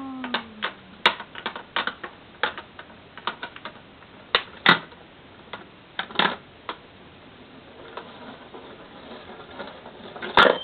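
Irregular plastic clicks and knocks from a Kuru Kuru Chime ball-drop toy and its plastic balls being handled, with sharper knocks about four and a half seconds in and near the end.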